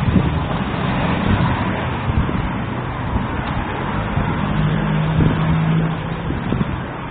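Street ambience of road traffic: a steady wash of car noise and low engine rumble, with a low steady drone from a vehicle coming in about four and a half seconds in and lasting over a second.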